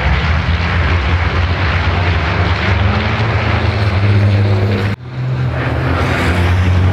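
Racing trucks' turbo-diesel engines running hard as they pass, a deep steady drone. The sound breaks off abruptly about five seconds in, then picks up again.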